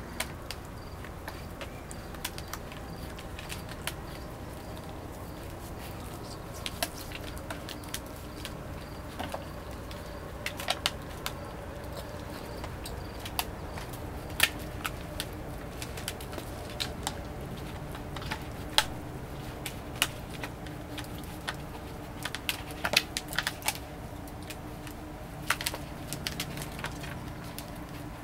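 Puppies moving about and feeding at a plastic tray on a concrete floor: irregular sharp clicks and taps of claws, kibble and plastic, several a second at the busiest moments, over a faint steady hum.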